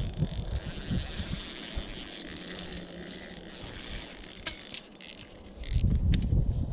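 Shimano Sedona spinning reel being cranked to wind in line, a steady high whir from its gears and rotor, with a few light clicks about four and a half seconds in. Wind buffets the microphone at the start and again near the end.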